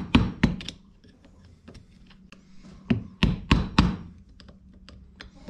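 Steel claw hammer tapping the butt of a wooden-handled screwdriver, driving a snap ring into its groove in a tractor bevel gear housing. There are about three taps at the start, then a quicker run of four taps about three seconds in, with lighter taps between.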